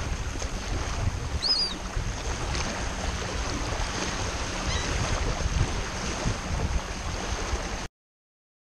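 Wind buffeting the camera microphone, with small waves washing over the shallow mudflat shore; a short high chirp about one and a half seconds in. It cuts off abruptly near the end.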